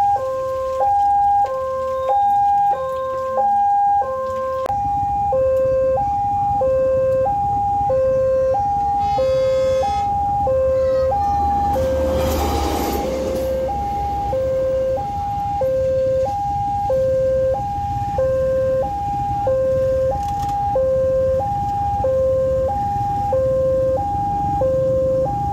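Railway level-crossing alarm from the loudspeaker on the crossing pole, sounding its repeating electronic two-tone warning, a higher tone then a lower one about once a second. A short horn blast comes about nine seconds in, and around twelve seconds the track-measuring rail car rumbles past over the crossing.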